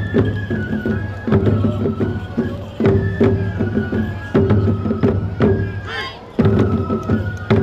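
Japanese festival music accompanying a tiger dance: a transverse bamboo flute playing a stepped melody over regular taiko drum strikes.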